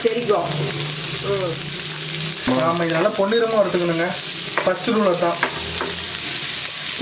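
Sliced onions sizzling in hot oil in a nonstick kadai while a spatula stirs them, just after they have gone into the oil. A few short voice sounds come over the steady sizzle.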